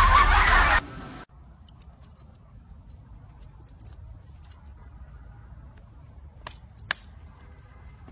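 Loud music that cuts off abruptly about a second in, followed by a faint steady background with scattered light ticks and two sharp clicks near the end.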